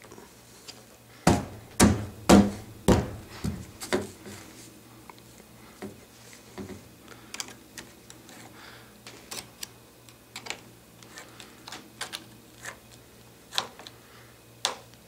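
Worm-drive hose clamp on a rubber pipe cap being tightened with a nut driver, giving a run of small irregular clicks. A few louder knocks come between about one and four seconds in.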